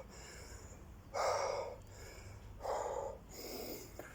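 A man breathing hard from the exertion of repeated burpees: two loud, rasping breaths about a second and a half apart, then a fainter one.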